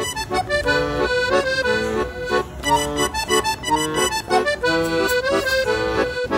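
Background music: an instrumental tune of short notes that change several times a second.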